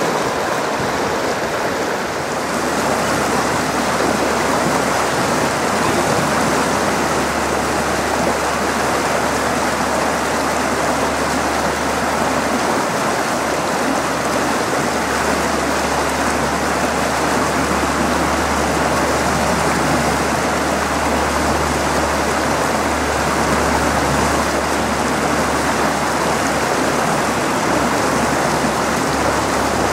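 Shallow, rocky trout stream rushing over a riffle of stones in a steady, even wash, with a low rumble underneath from about two seconds in.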